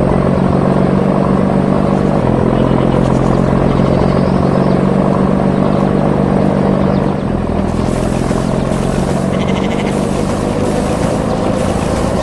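Combine harvester engine running with a steady low hum. About seven seconds in the engine note changes and a regular pulsing hiss joins it.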